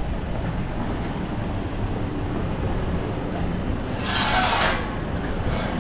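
A steady low rumble of vehicle traffic, with a short loud hiss about four seconds in.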